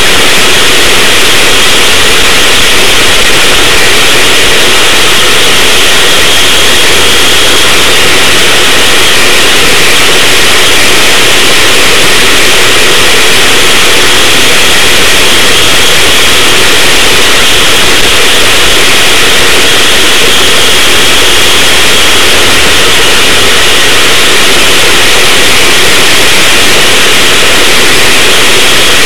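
Racing go-kart engine running steadily under way, picked up by an on-board camera and so loud that it comes through as a constant, distorted noise.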